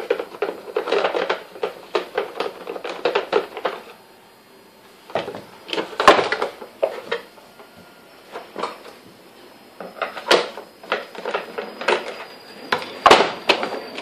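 Plastic housing of an Electrolux canister vacuum cleaner being handled during disassembly. A quick run of clicks and rattles is followed by scattered knocks and clatter as the body is turned over and set down on the workbench.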